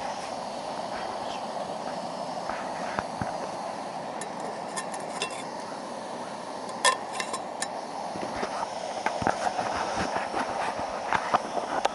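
Small twig fire crackling and snapping over the steady hiss of a camp stove burner heating a pot. The snaps come in clusters, most often in the second half.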